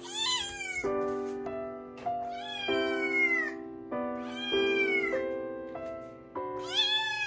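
Munchkin kitten meowing four times, each meow about a second long and sliding down in pitch at its end, over background music of held chords.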